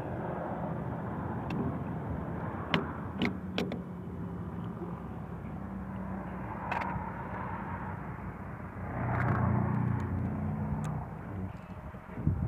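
Sharp clicks and taps of the Crosman 1077 air rifle's plastic receiver and small parts being handled during disassembly, a few close together about three seconds in and one near seven seconds. Under them runs a steady low hum that swells louder for a second or so about nine seconds in.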